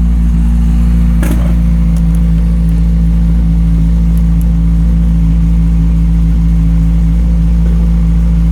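2014 Kawasaki Ninja 1000's inline-four engine idling steadily with the stock mufflers removed, running only through the header and collector box, which hold the catalytic converter. The idle is even and not much louder than with the cans on. One brief click about a second in.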